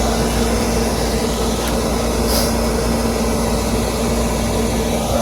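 Daikin gas furnace running in high fire: a steady mechanical hum with a steady low tone under it.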